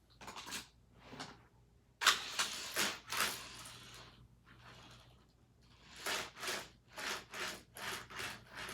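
Die-cast Hot Wheels cars and plastic track clattering: a sudden rattling clatter about two seconds in that fades out over a couple of seconds, then a string of separate clicks and knocks near the end.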